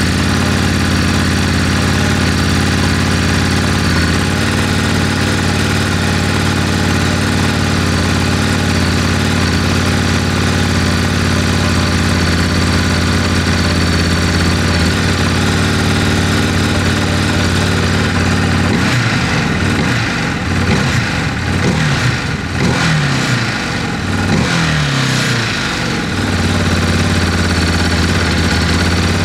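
Ducati DesertX's 937 cc V-twin running through an SC Project slip-on silencer: a steady idle, then from about 19 to 26 seconds in several short throttle blips that rise and fall, then back to idle. The engine is not yet at full operating temperature, so it is not revved hard; the note is a bit punchier than the stock exhaust but still very restrained.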